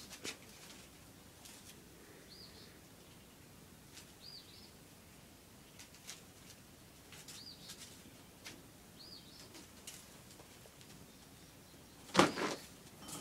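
A small bird chirping over and over, one short high arched chirp about every two seconds, with faint scattered clicks and scuffs. About twelve seconds in there is one loud brief thump or rustle.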